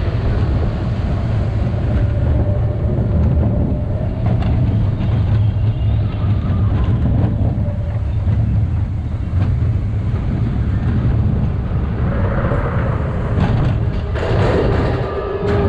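Expedition Everest roller coaster train rolling along its track with a steady low rumble of wheels on rails. Near the end it reaches the lift hill and a series of clanks sets in as the lift chain engages, followed by a steady mechanical whine.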